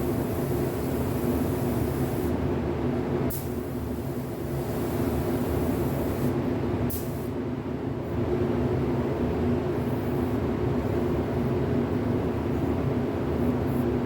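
Steady machine hum of paint-booth equipment, with the high air hiss of a paint spray gun that stops for a few seconds and then resumes; a couple of short clicks fall during the pause.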